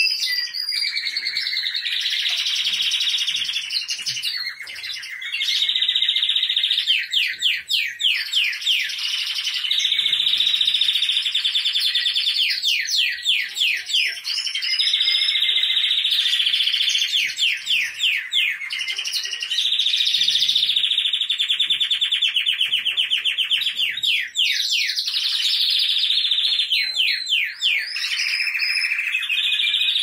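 Spanish timbrado canaries singing without pause: long rolling trills of rapidly repeated notes strung into continuous phrases, with several birds overlapping.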